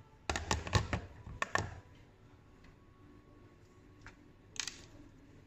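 Plastic clicks and knocks, a quick run in the first two seconds, as a clear plastic cup of popping boba and a round white plastic disc are handled and set down on a kitchen scale; one more click comes a little past four and a half seconds.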